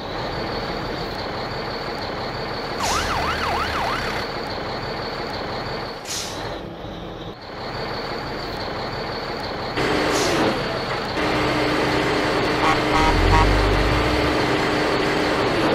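Sound-effect street traffic, heavy and steady, with a siren wailing up and down briefly about three seconds in. From about ten seconds a heavy truck engine runs with a steady whine, and a deep rumble swells about thirteen seconds in as exhaust smoke puffs from the toy road scraper.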